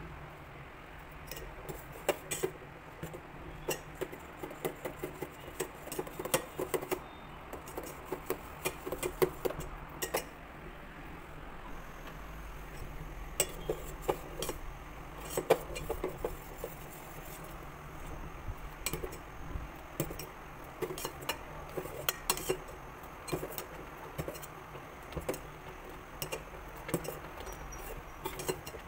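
Steel spoon clinking and scraping against a stainless steel pot as thick pearl millet porridge is stirred while it cooks. The knocks come irregularly, in quick clusters throughout.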